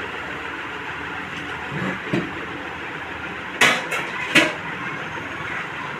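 Steel knife stirring spiced powder in a plastic plate, scraping and tapping against it: a couple of soft knocks, then two sharp clicks under a second apart, over steady background noise.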